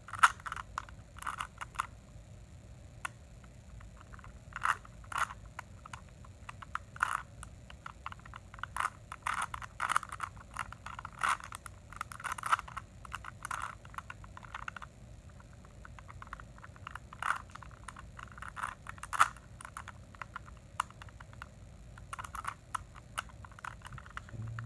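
Rubik's cube being turned by hand: plastic layers clicking and clacking in irregular quick runs, with brief pauses between them.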